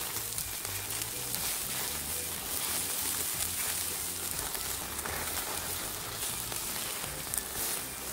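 Beef burger patties sizzling over a charcoal grill, with a steady hiss and scattered crackles of fat dripping onto the coals.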